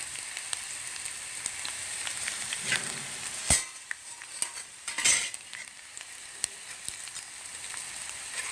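Cauliflower pieces coated in gram flour and rice flour sizzling steadily as they deep-fry in hot oil in a kadai. A sharp knock sounds about three and a half seconds in, and the sizzle spurts louder about five seconds in.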